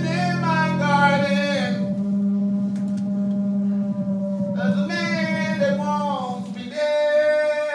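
Wordless singing in three long, sliding, wavering phrases over a steady low drone from a synthesizer, in a live experimental music performance.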